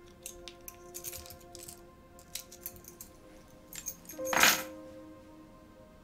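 A set of keys jingling, with a scatter of light clinks and then one louder jangle about four and a half seconds in, over soft, sustained notes of background score.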